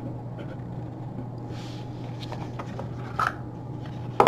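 Gloved hands handling cardboard trading-card boxes: faint rustling and a light knock, then a sharp tap near the end as a box is set down on the table. A steady low hum runs underneath.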